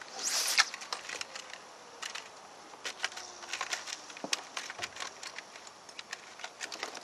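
Swish of a distance-casting rod and line swung hard through the cast, about half a second long right at the start. It is followed by scattered light clicks and a faint tone that falls slowly over the next few seconds.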